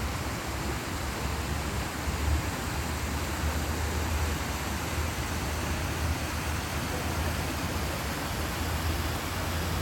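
Water pouring steadily down a man-made garden waterfall: an even rushing noise with a low rumble underneath.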